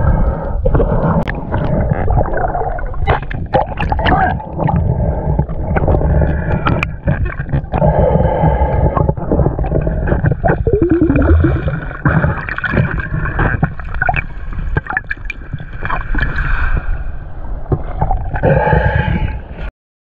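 Underwater sound picked up by a diving camera: water rushing and gurgling against the housing, with scattered sharp clicks. It cuts off suddenly near the end.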